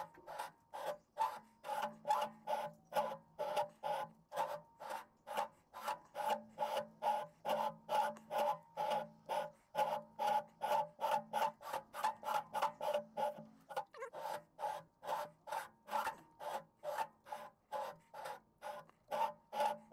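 A lathe cutting tool scrapes a firing-ring groove into a cast-iron Mack E9 V8 exhaust manifold as the chuck is worked round by hand. It makes a rasping scrape about two or three times a second, each stroke with a faint ringing tone. The cut is made by hand because the lathe's slowest speed is too fast for it.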